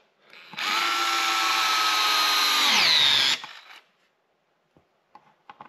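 DeWalt 8-volt gyroscopic cordless screwdriver driving a screw into softwood: its motor whines steadily for about three seconds, then drops in pitch as it slows under load and stops. A few faint ticks follow near the end.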